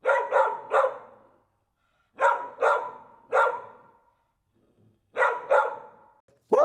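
Dog barking in three bursts of three sharp barks each, the bursts about two and a half seconds apart, with each bark trailing off briefly.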